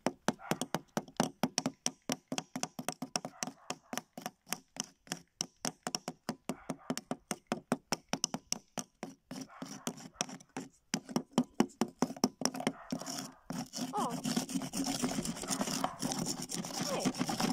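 Small metal hammers tapping a chisel and a chalky plaster block from a fossil-dig kit: quick, sharp taps about four a second. After about thirteen seconds the taps give way to steadier scraping and rubbing on the block.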